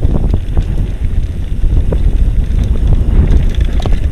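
Mountain bike riding over a rough trail: wind buffets the microphone over a steady rattle and clatter of small knocks from the bike.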